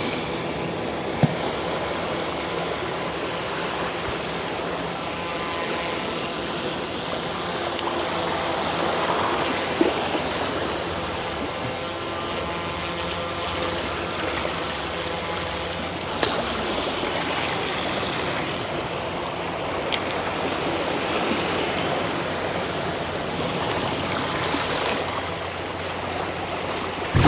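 Sea water rushing and washing over shoreline rocks, a steady, even rush of water with a few faint clicks.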